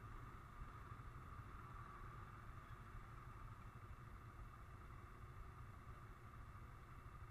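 Near silence: a faint, steady low rumble with a little hiss.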